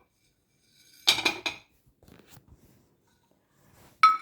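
Pieces of dry ginger dropped into a metal frying pan of crisp-fried leaves: a quick cluster of hard clattering knocks about a second in, a few softer knocks after, and a short ringing metallic tap near the end.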